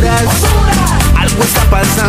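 Background music with a steady beat and melodic instruments.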